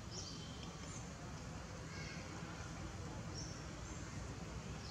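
Outdoor forest ambience: a steady low rumble with a few faint, brief high chirps and squeaks scattered through it.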